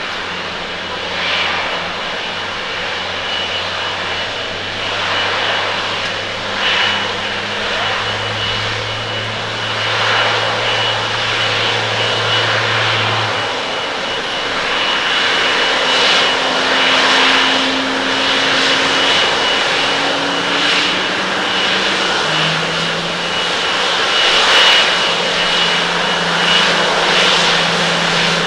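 Japan Airlines Boeing 777-200ER's twin jet engines running at taxi power: a steady hiss and rumble with a thin high whine, growing slowly louder as the airliner taxis closer.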